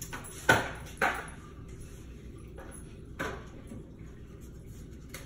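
Three sharp clinks of hard kitchen items knocked together at the sink, each with a brief ring: two about half a second apart, the loudest first, and a softer third about two seconds later.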